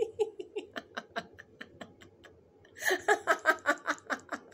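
A woman laughing: a run of short laughs that trails off over the first two seconds, then a fresh burst of laughter about three seconds in.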